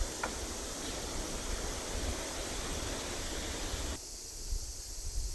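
Steady outdoor noise with wind rumbling on the microphone. The noise thins abruptly about four seconds in.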